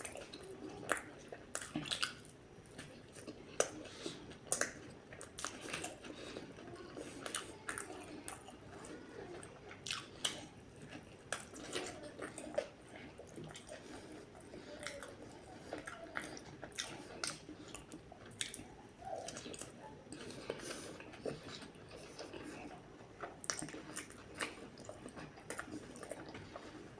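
Close-miked chewing and biting of a patty burger, with frequent irregular sharp mouth clicks.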